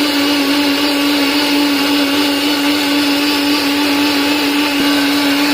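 Electric kitchen grinder running at a steady, even pitch, grinding boiled carrots and onion into a purée.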